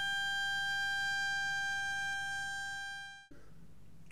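Model vocal cords, two rubber bands stretched across the end of a tube with a narrow slit between them, sounding one steady high-pitched tone as air from an inflated balloon is pushed through the slit. The tone fades and stops about three seconds in as the air runs out.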